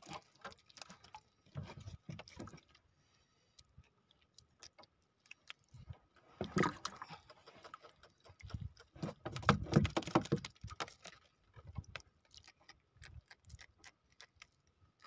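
Irregular light clicks and taps from fishing line, hook and a freshly caught small fish being handled in a small wooden boat. Louder stretches of knocking and rustling come about six seconds in and again from about nine to eleven seconds.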